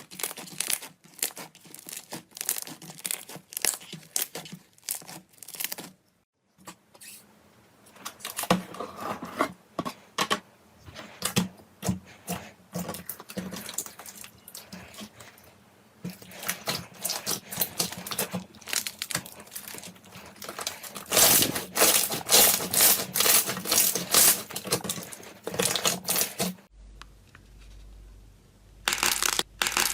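Slime being squeezed and stretched by hand, giving rapid crackling and popping clicks. The sound comes in several short clips, with a brief near-silent break about six seconds in and a quieter stretch near the end.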